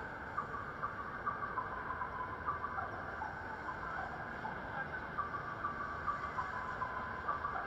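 Busy city crossing in the rain: steady traffic and rain noise, with short high chirps repeating throughout.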